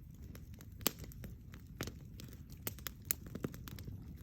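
Wood campfire crackling, with sharp pops at irregular intervals over a low rumble.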